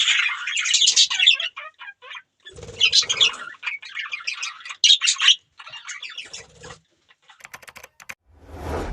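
Budgerigars chirping and chattering in quick, overlapping bursts, with short pauses. A few sharp clicks follow near the end, then a rushing swell of noise starts just before it ends.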